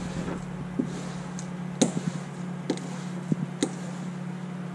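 Metal fiberglass laminating roller worked back and forth over wet, resin-soaked glass cloth and peel ply, giving a few sharp, irregular clicks over a steady low hum.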